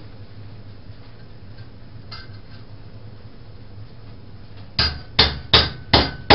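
A hammer driving into an overhead wooden ceiling joist: five sharp blows about 0.4 s apart, starting about five seconds in, over a faint steady hum.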